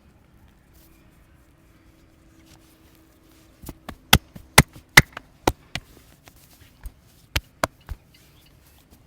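A quick run of sharp hand slaps or claps on the head during a head massage, about a dozen over four seconds. It starts a little before halfway in, and the strongest strokes come near the middle.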